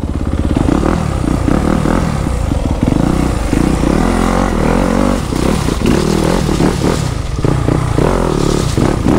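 Yamaha YZ250F four-stroke single-cylinder dirt bike engine running at low speed, its revs rising and falling with short throttle blips as the bike bumps over gravel ballast and across railway rails.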